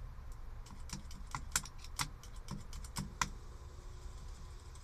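A screwdriver tip tapping and scraping on the metal horn contacts in a 1976 Chevy Blazer's steering wheel hub makes a quick, irregular run of sharp clicks over about three seconds. This is a hand check of the horn circuit, and no horn sounds.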